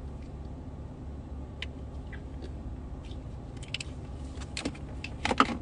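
Steady low hum of a car interior, with a few faint ticks and a small cluster of clicks near the end.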